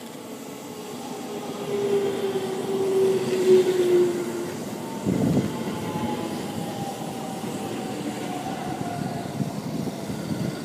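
JR Central 313 series electric multiple unit running into the platform and slowing. Its traction motors whine, dropping steadily in pitch as it brakes, over the rumble of its wheels on the rails. There are a few heavier wheel thumps about five seconds in.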